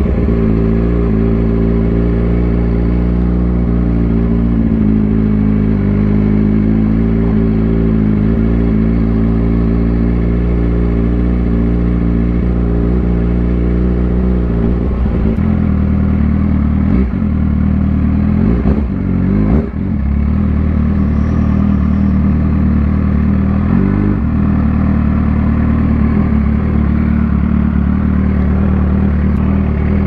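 2006 Suzuki GSX-R600's inline-four engine running at a steady speed under way. About halfway through its pitch shifts, then dips and recovers briefly twice, before it runs steady again.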